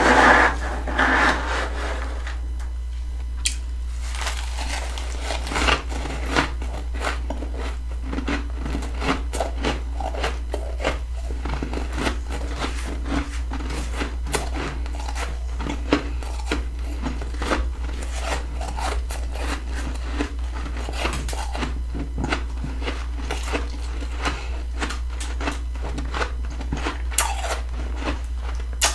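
Close-miked chewing of freezer frost: a steady stream of small crisp crunches, busiest right at the start, over a steady low hum.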